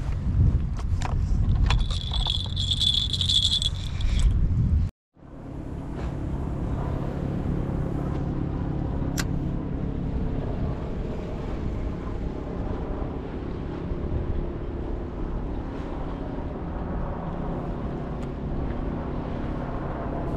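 Stroller wheels rumbling and rattling over brick pavers, with a high steady squeal for about two seconds. After a sudden cut about five seconds in, a steady low outdoor hum runs on.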